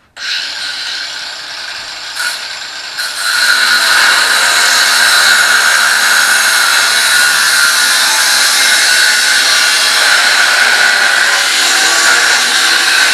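Ryobi cordless angle grinder with a cutting wheel running and cutting steel: it starts suddenly, grows louder about three seconds in as the wheel bites into the metal, then holds a steady high-pitched grinding whine.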